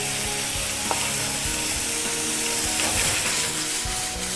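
Arborio rice and onion sizzling in a frying pan as they are stirred with a wooden spoon, with a few light knocks of the spoon against the pan.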